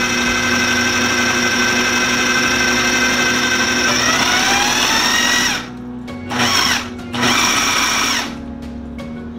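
Food processor motor blending basil pesto: it runs steadily, its whine rises in pitch about four seconds in, then cuts off and is pulsed twice in short bursts before stopping.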